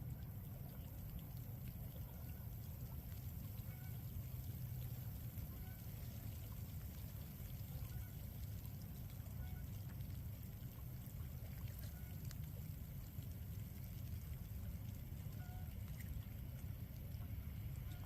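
Outdoor ambience: a steady low rumble, with faint short high chirps now and then.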